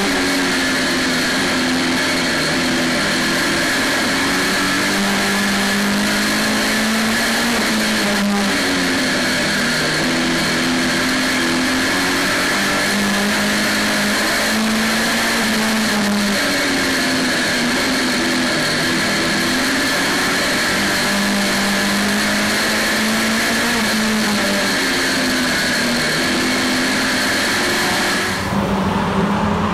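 Saloon stock car's engine heard from inside the cabin while racing, its revs rising and falling in a repeating cycle every few seconds as it laps the oval, over a constant high whine and road and chassis noise. About a second and a half before the end it cuts to a different, rougher trackside sound.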